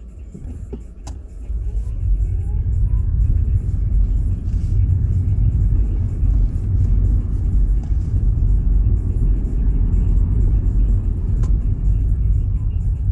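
Car driving, a steady low rumble of engine and road noise that grows louder about two seconds in and then holds. A faint rising whine early on and a few sharp ticks sit on top.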